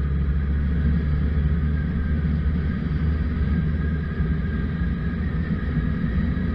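Suzuki Bandit 1200's inline-four engine running steadily while riding at cruising speed, under a heavy low rush of wind on the microphone. A faint whine in the engine note creeps up slightly near the end.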